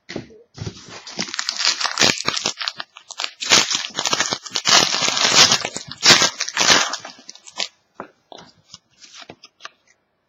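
A trading card pack's wrapper being torn open and crinkled, crackling for several seconds, then a few scattered light clicks.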